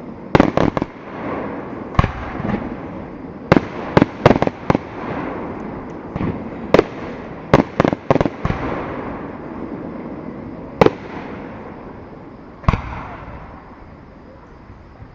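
Aerial fireworks display going off: about fifteen sharp bangs, several in quick clusters in the first half, with rumbling echo and crackle between, thinning to a few single bangs toward the end.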